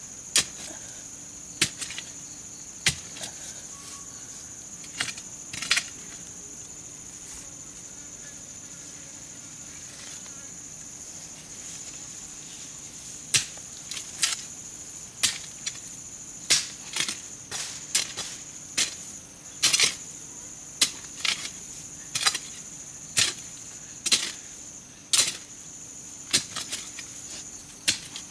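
Metal hoe blade chopping into soil again and again while digging: a few strikes at first, then after a lull of several seconds, strikes about once or twice a second. Insects drone steadily in a high pitch underneath.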